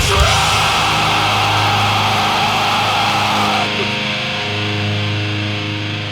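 A distorted electric guitar chord left ringing after the drums stop, slowly dying away; its bright top end drops out about three and a half seconds in.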